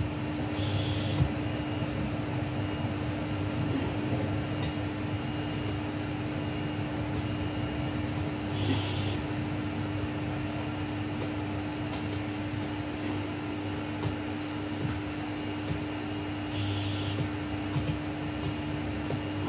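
A steady mechanical hum with one constant tone runs throughout. Three short scraping sounds, about a second in, about nine seconds in and near the end, come from a spoon's edge scraping the skin off a piece of fresh ginger.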